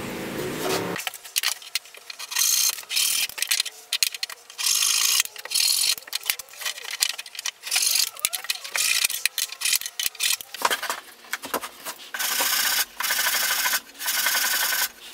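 Small hand saw cutting off the protruding oak spline ends at a frame corner in quick, short strokes, then sandpaper on a block rubbed over the wood in longer strokes near the end. A steady machine hum stops about a second in.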